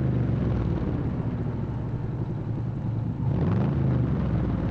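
Car engine running at idle, revved up and back down about three and a half seconds in.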